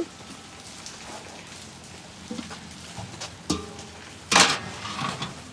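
Steady rain with a few short knocks and clinks of dishes and utensils, and one brief louder rush of noise about four seconds in.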